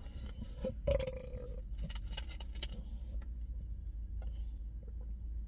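Clicks and crackles of a plastic drink bottle being picked up and handled, loudest in the first two seconds, over a steady low rumble in a car cabin.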